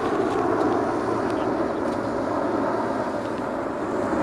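Airbus A350-900 on final approach, gear down, passing low overhead: its Rolls-Royce Trent XWB turbofans at approach power, with a steady, even rushing noise.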